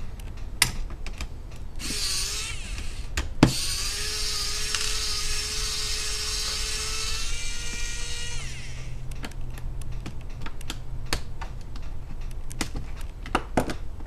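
A small electric screwdriver runs for about six seconds, backing a screw out of the plastic bottom case of an HP 15 laptop, and its whine drops in pitch as it winds down. Sharp clicks and light taps of the tool and screw on the case come before and after.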